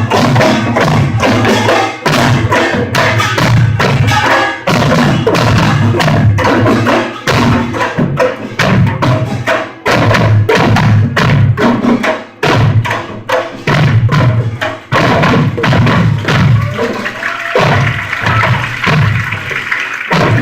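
Korean pungmul percussion band of drums and small gongs playing a fast, dense rhythm, recorded on a phone with poor, harsh sound. Near the end the beating thins out and a rushing hiss takes over.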